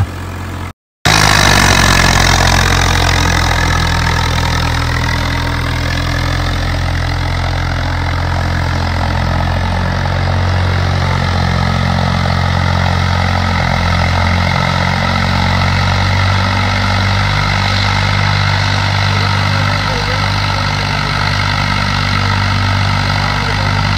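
Swaraj 855 tractor's diesel engine running steadily under load while pulling a 13-tine cultivator through the soil, after the sound cuts out for a moment about a second in.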